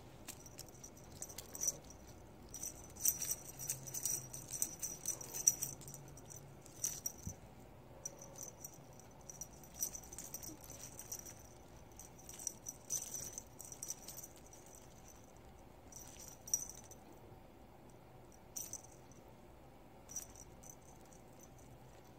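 Small metal bell on a feather-and-pompom cat toy jingling in irregular bursts as a kitten bats and bites at it, busy through the first two-thirds and only a few brief jingles near the end.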